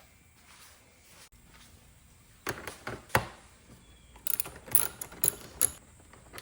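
Hand tools working on a dirt bike: a few separate metallic knocks, then a quick run of sharp clicks a little past the middle.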